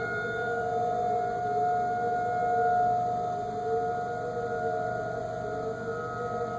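Federal Signal 2001 rotating outdoor warning siren sounding its monthly test, holding a steady pitch while its loudness swells and fades gently as the horn turns.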